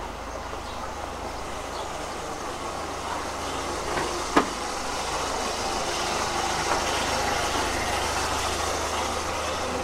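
Town-centre street ambience: a steady rumble of vehicle engines and traffic that grows a little louder from about three seconds in. A single sharp knock sounds about four and a half seconds in.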